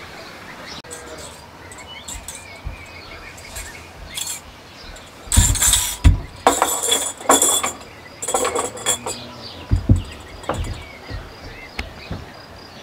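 Kitchen clatter of dishes being handled: a run of knocks and clinks in the middle, with faint birdsong in the background.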